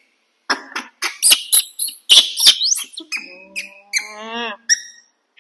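Baby macaques squeaking and chirping in a rapid run of short, high calls. About three seconds in comes one longer, drawn-out cry that rises at its end.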